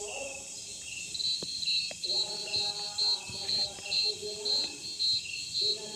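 Night insect chorus: crickets chirping in a quick even rhythm of about three chirps a second over a steady high hiss. Lower drawn-out pitched calls sound underneath.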